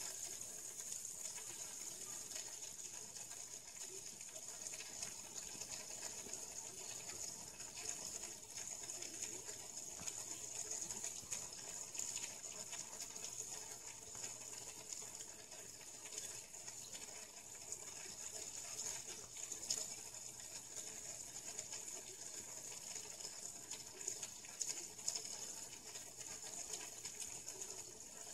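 Faint steady hiss and trickle of aquarium water, with a few soft ticks scattered through it.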